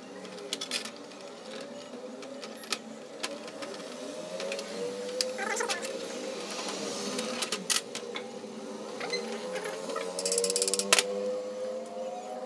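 Light clicks and taps of small hand tools and the parts of a turbo wastegate actuator being handled on a workbench, with a quick rattle of clicks about ten seconds in. A steady background drone whose pitch wavers slowly runs underneath.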